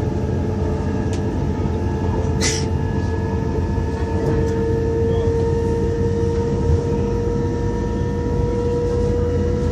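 CRH1A electric multiple unit running, heard from inside the passenger car: a steady low rumble of the train under way with a steady whine riding over it. A short hiss comes about two and a half seconds in.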